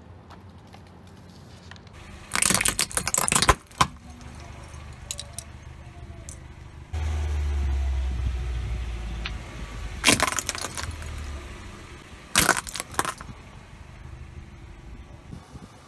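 A car tyre crushing small shiny coloured ornaments on asphalt: three crackling, jingling bursts of breaking shards, one about two seconds in and two more near ten and twelve seconds, over the car's low engine rumble, which grows louder about seven seconds in.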